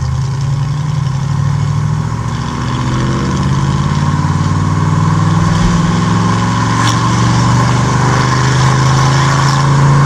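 Chevrolet Impala's engine heard from inside the cabin, pulling under acceleration, its pitch and loudness climbing gradually from about three seconds in.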